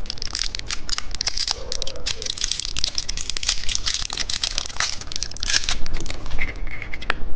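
Dense, rapid crackling and crunching close to the microphone as a small candy and its wrapper are handled and eaten.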